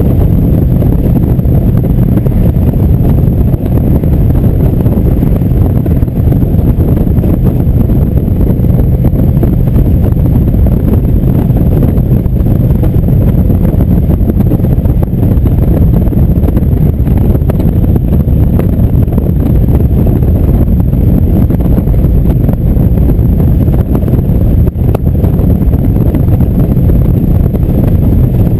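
Indian cruiser motorcycle cruising steadily at highway speed: an even, low engine drone mixed with heavy wind rush on the microphone.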